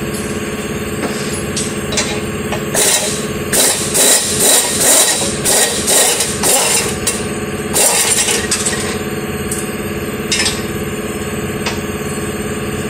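Metal hand tools clinking, knocking and scraping against the underside of a car. There is a quick run of sharp clinks and rattles from about three to nine seconds in, and a few single knocks after, over a steady background hum.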